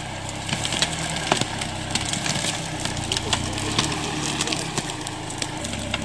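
Dry twigs and branches cracking and snapping under the tyres of a Toyota Land Cruiser 70 as it crawls through forest brush, many sharp cracks in irregular succession over the engine's low, steady running.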